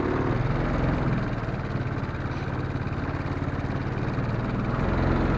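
Four-wheeler (ATV) engine running while the rider drives, easing off about a second in and picking up again near the end.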